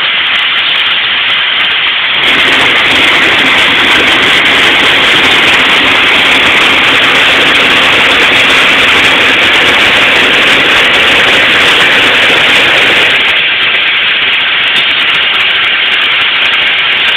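Fire hoses spraying high-pressure water streams with a steady loud hiss, over the fire engine's pump engine running. The rush grows louder about two seconds in and drops back a little before the end.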